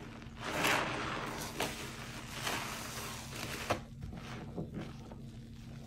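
Soapy sponge squelching as rubber-gloved hands squeeze and press it in a basin of thick suds, in a series of wet squishes.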